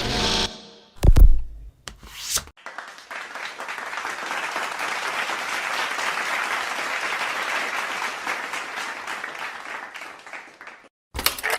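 A few short sound effects in quick succession, then a crowd applauding for about eight seconds, tapering off near the end.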